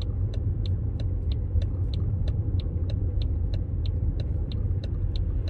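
Low, steady vehicle rumble with a sharp, even tick repeating about three times a second.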